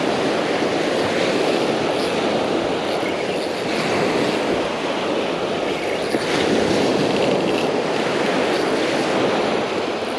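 Ocean surf washing ashore, mixed with wind on the microphone: a steady rushing noise with no distinct strokes.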